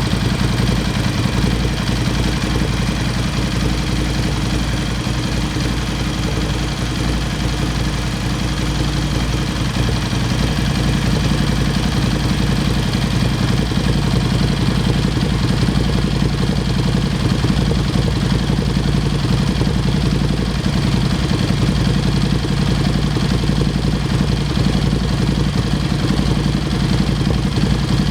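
Ducati Scrambler 803's air-cooled L-twin idling steadily through an HP Corse Hydroform slip-on exhaust.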